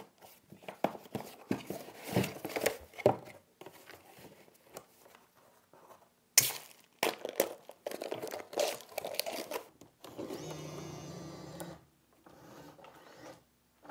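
Packaging handled: a cardboard box is opened and a filament spool is unwrapped, with crinkling, tearing and scattered clicks and knocks. About ten seconds in, a small motor runs steadily for about two seconds as the Bambu Lab AMS feeder pulls in the new filament.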